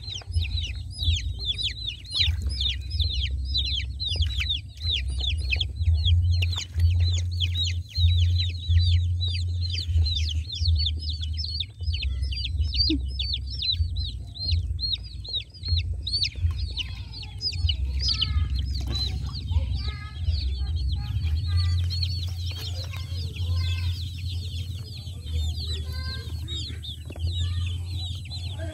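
Young chicks peeping rapidly, many short high falling peeps overlapping, thinning out and growing quieter about halfway through. An uneven low rumble runs underneath.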